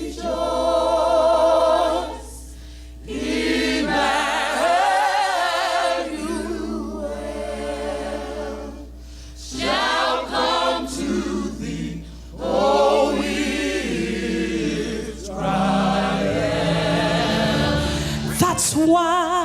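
A gospel choir singing in held phrases, with short breaks between them, over a steady low hum.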